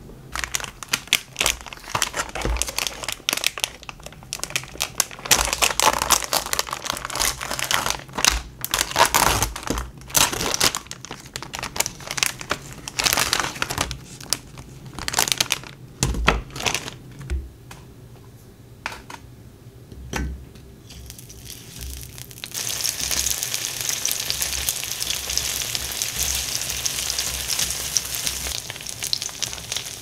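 Plastic packaging crinkling as a pack of gyoza is handled and opened. After about twenty seconds, dumplings start sizzling steadily in hot oil in a frying pan.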